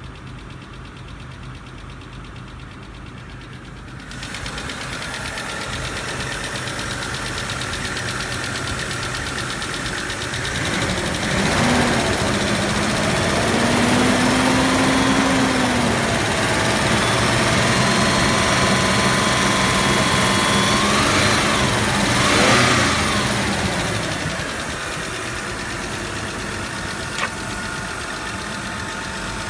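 1996 Mitsubishi Pajero's 3.5-litre DOHC 24-valve V6 petrol engine running: it idles, is revved up by hand at the throttle linkage about a third of the way in and held at raised revs, gets a quick blip, and settles back to idle with a few seconds to go.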